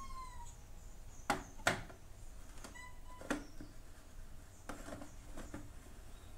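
Faint clicks and knocks of a stainless steel mixer-grinder jar being handled and set onto its base, about five in all. A faint, short, high steady tone is heard at the start and again briefly about three seconds in.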